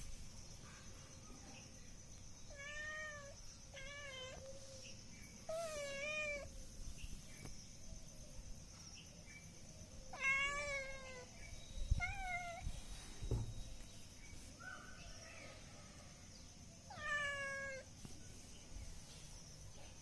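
Domestic cat meowing repeatedly, about six separate meows spread across the stretch, each one rising and then falling in pitch.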